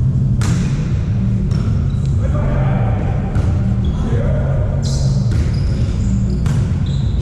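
Volleyball play in a sports hall: the ball struck and bouncing in sharp thuds every second or so, with short high shoe squeaks on the court floor and players' voices, over a heavy steady low rumble.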